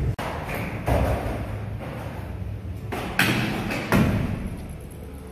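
Stunt scooter rolling on a smooth skatepark floor, its wheels rumbling, with three sharp thumps of the scooter striking the ground.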